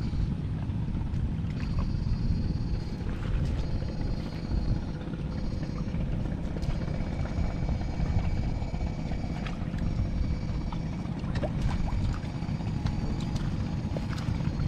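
Electric fishing machine's high whine cutting in and out in stretches of a second or so, over a steady low rumble with scattered clicks.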